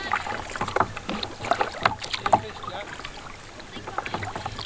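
Paddles dipping into calm lake water: irregular small splashes and drips, with water lapping against the boat's hull.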